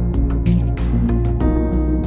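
Background music with a steady beat over held pitched notes.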